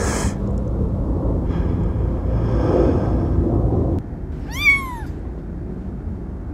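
A single cat meow, about half a second long and rising then falling in pitch, about four and a half seconds in, over a low steady outdoor rumble.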